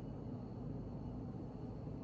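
Steady low background hum and hiss of room tone, with no distinct sounds.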